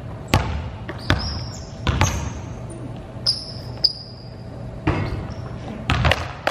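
Basketballs bouncing on a gym floor, about ten irregular bounces from two players dribbling, echoing in the large hall. Several short, high sneaker squeaks are mixed in between the bounces.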